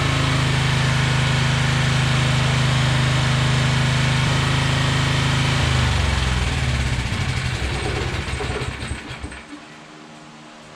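Generac 7000EXL portable generator's engine running steadily, then shut off about six seconds in: its pitch drops and it winds down over a few seconds to a stop.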